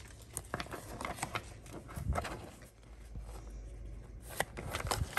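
Pokémon trading cards handled in the hand, the stiff card stock sliding and tapping against itself in irregular soft clicks and scrapes as the freshly opened pack's cards are fanned through.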